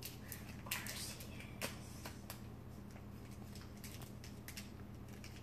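Faint crinkling of a foil trading-card booster pack wrapper and the cards being slid out of it, a few light crackles spread through, over a steady low hum.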